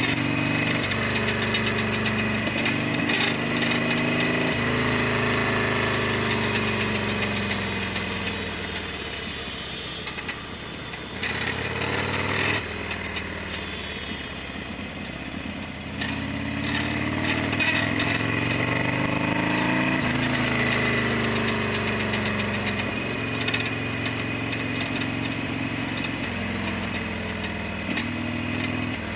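Harley-Davidson Sportster XL1200R's air-cooled V-twin engine running under way. Its pitch climbs, drops suddenly at each gear change, and falls off slowly as the bike slows, before pulling up again.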